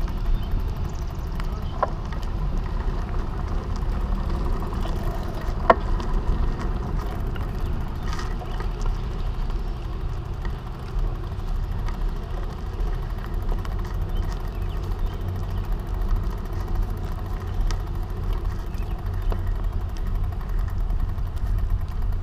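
Steady low rumble of a bicycle rolling slowly across asphalt, picked up by a camera mounted on the bike: wind on the microphone and tyre noise. A couple of short sharp clicks come through, about two and six seconds in.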